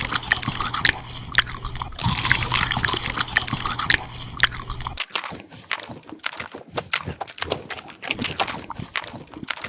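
Wet, crackly squishing and quick small clicks of soft squishy toys being squeezed and handled as pretend eating. About five seconds in, a low background hum cuts off and the crackling goes on.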